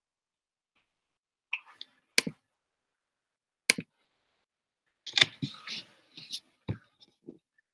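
A few sharp knocks and clicks, then a short burst of rustling and a low knock near the end: handling and movement noises, heard through video-call audio that cuts to silence between them.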